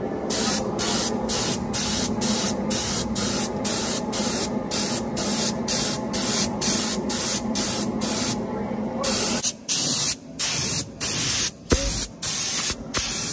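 Harbor Freight gravity-feed air spray gun hissing in short, rapid bursts, about two a second, as its trigger is pulled and released while spraying paint; near the end the bursts are longer. A low steady hum underneath cuts out about nine and a half seconds in.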